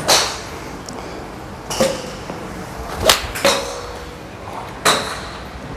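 Iron golf clubs striking range balls off hitting mats: five sharp cracks at uneven intervals, each with a short ring, from the near bay and the neighbouring bays.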